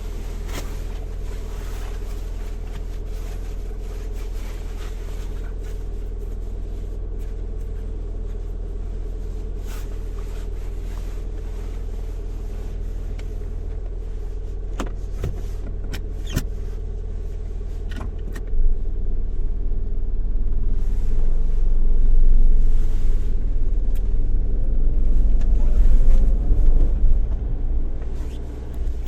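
Car engine heard from inside the cabin: a steady low hum with a few sharp clicks, then about two-thirds of the way in it grows louder and rises in pitch as the car accelerates, easing off near the end.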